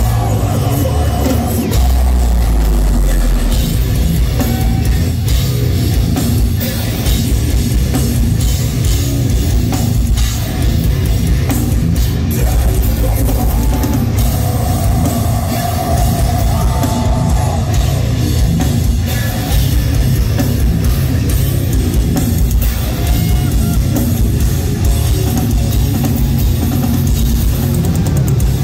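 Deathcore band playing live through a venue PA: pounding drums and cymbals under heavy distorted guitars, loud and unbroken.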